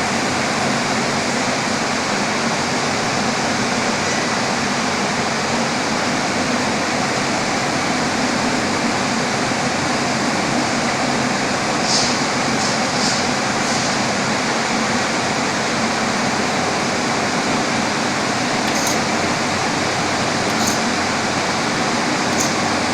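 Textile gas singeing machine running: a steady, loud mechanical noise with a faint hum beneath it, and a few short high clicks about halfway through and again near the end.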